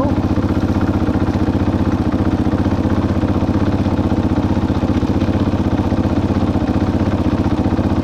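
2022 KTM 500 dirt bike's single-cylinder four-stroke engine idling steadily in gear on a stand, turning the rear wheel and chain, with an even, unbroken firing pulse.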